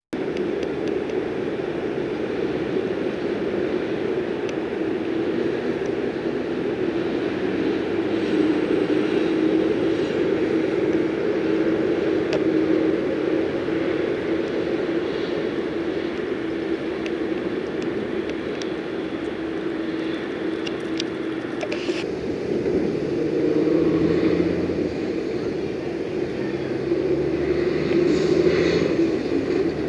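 Steady rumble of road traffic, with trucks passing. A heavier engine swells louder about two-thirds of the way through and again near the end.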